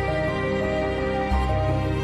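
Slow, sad-sounding background music: sustained melodic notes over a deep bass note that changes about every two seconds.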